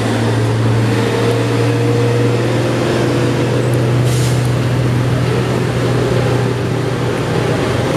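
Diesel engine of a Hino box truck running with a steady low drone as it climbs the hill road, mixed with road noise and motorcycle engines passing close by.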